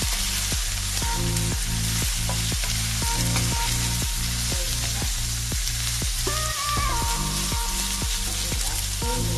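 Cabbage, carrot strips and chicken sizzling as they are stir-fried in a nonstick pan and turned with a wooden spatula, a steady frying hiss. Background music with a regular beat plays underneath.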